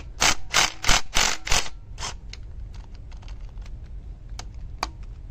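Hand ratchet wrench clicking in a quick run of about six short strokes, then lighter scattered clicks, as it loosens the camshaft bridge bolts on an Audi 2.0 TFSI engine.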